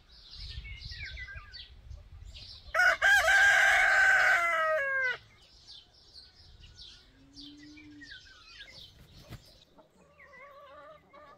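A rooster crows once, loudly, about three seconds in, the call ending in a falling tail. Small birds chirp throughout, and hens cluck faintly near the end.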